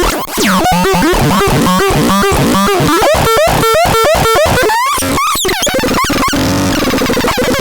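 Synthesizer playing harsh, noisy electronic tones: a fast run of short repeated notes, each swooping in pitch, speeding up to about three a second in the middle.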